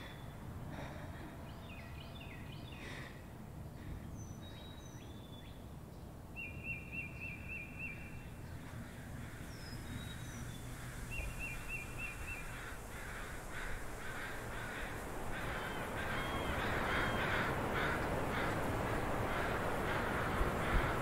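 Field recording of birds chirping, with short rapid trills and quick high calls, over a steady outdoor background hum that grows louder in the second half.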